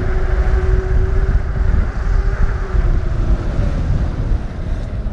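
Wind buffeting the microphone of a moving bicycle as it rides along pavement, with a steady hum that fades out about three seconds in.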